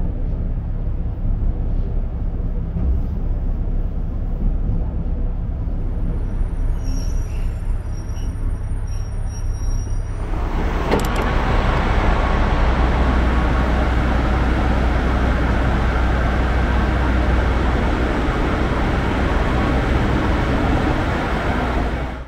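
Cabin of a JR Hokkaido 261 series diesel train running in toward a station: a low, steady rumble, with faint high squeals from about six seconds in. About ten seconds in it changes to a louder, steadier station-platform din of idling trains and noise, with a click, until it cuts off at the end.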